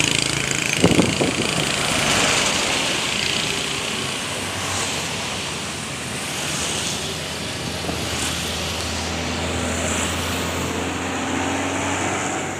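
Roadside traffic: a steady wash of engine and tyre noise from passing vehicles, with a short clatter about a second in and a low engine hum growing steadier near the end.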